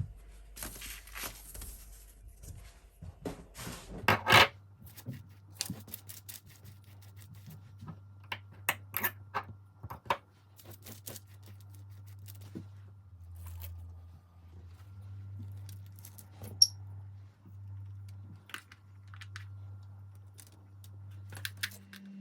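Scattered clicks, taps and rustles of items and packaging being handled by hand, with a louder rustle about four seconds in, over a low steady hum.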